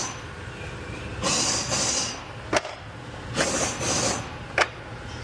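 Hand tools being handled: two short bursts of metallic rattling and scraping, as when rummaging for a socket, and two sharp metal clicks, typical of a socket snapping onto a ratchet.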